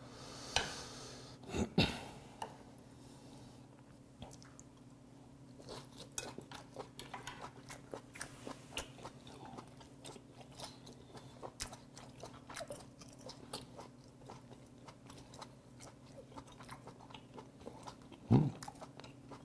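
Close-up chewing of a mouthful of sea hare: soft, irregular wet crunches and clicks, several a second, with a short louder thump near the end.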